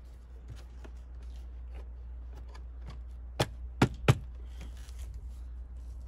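Hands working on the lower dashboard trim around the steering column of a Mercedes-Benz W210: scattered light clicks and ticks, then three sharp knocks in quick succession a little over three seconds in, over a steady low rumble.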